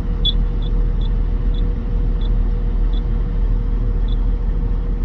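Komatsu PC800 excavator diesel engine idling steadily, heard from inside the cab, a constant rumble with a steady hum over it. A string of short high beeps sounds through it, roughly twice a second at uneven spacing.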